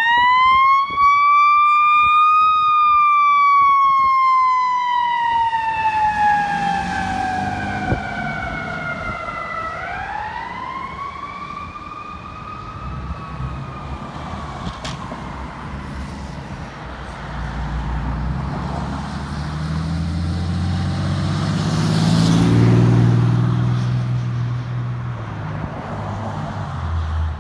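Federal Signal EQ2B electronic siren on a fire rescue truck giving the mechanical-siren growl: it winds up, slowly winds down, then winds up again about ten seconds in before fading as the truck drives away. Engine and tyre noise from passing cars and trucks takes over in the second half.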